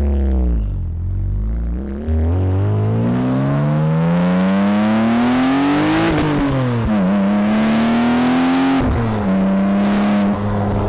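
Porsche 997 Turbo's twin-turbo flat-six, fitted with a Capristo valved exhaust, accelerating through the gears. Its pitch climbs steadily, drops at a gear change about six seconds in, climbs again, drops at a second change about nine seconds in, then holds steady.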